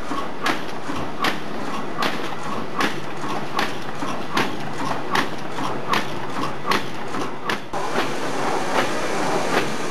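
Food container forming machine running, clacking about once every three-quarters of a second over a steady mechanical hum. Near the end the hum grows fuller while the clacks go on.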